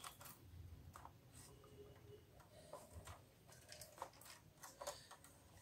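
Near silence, with a scattering of faint small clicks and taps from the inkjet printer's plastic mechanism as it is handled by hand.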